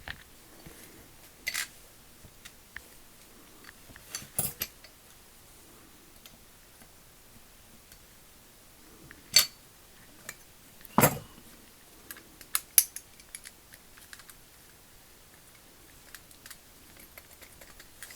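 Scattered clicks and light metallic clinks of a hand ratchet's small parts being handled and fitted back together during reassembly, with two louder sharp clicks about nine and eleven seconds in and a quick cluster soon after.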